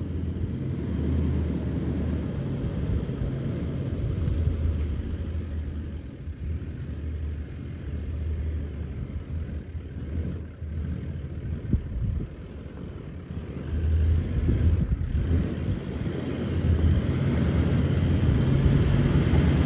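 V8 Toyota LandCruiser engine running as the vehicle crawls up a steep track in first gear, low range, with the rear lockers engaged. It makes a low engine note that swells and eases through the climb.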